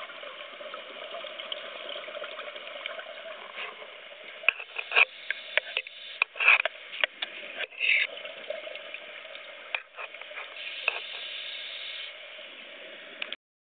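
Underwater sound picked up through a camera's waterproof housing: a steady watery hiss, with a cluster of sharp clicks and bubbly bursts around the middle. The sound cuts off abruptly shortly before the end.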